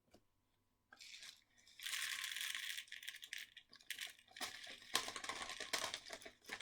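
Plastic drink bottle rattling, crinkling and scraping as it is handled, with many small irregular clicks and a denser scratchy stretch about two seconds in.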